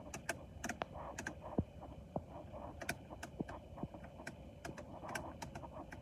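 Irregular light clicks and taps of small plastic parts being handled, several a second and all faint.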